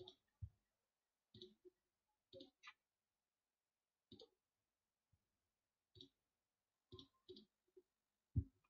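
Faint computer mouse clicks, about a dozen at irregular intervals, some in quick pairs, the loudest near the end.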